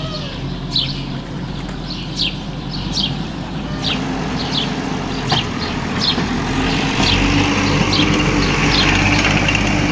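A small motor running with a steady hum that grows louder about seven seconds in, with birds chirping repeatedly, one to two short chirps a second.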